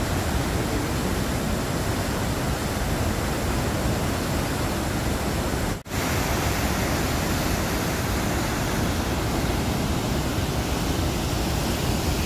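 Steady roar of a large waterfall and whitewater river pounding into a rock gorge, a dense, even rushing noise, cut off for an instant about six seconds in.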